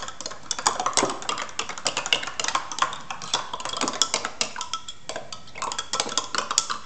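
Two metal spoons stirring a green vegetable drink in drinking glasses, clinking quickly and irregularly against the glass sides.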